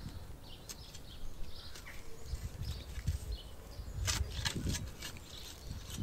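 A garden spade digging into loose soil, the blade cutting and scraping through the earth in strokes, the loudest about four seconds in. Small birds chirp in the background.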